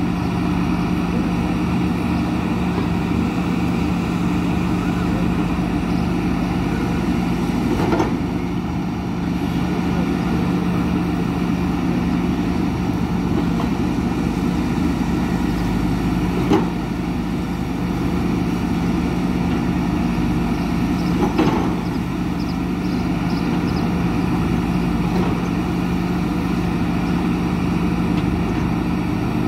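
Hidromek HMK 230LC crawler excavator's diesel engine running steadily as the machine digs earth, with a few short knocks spread through.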